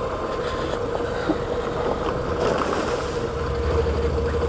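Adventure motorcycle engine running as it rides along a dirt trail, with wind buffeting the camera microphone and the tyres rolling over leaves and gravel. The low engine note grows stronger about three seconds in.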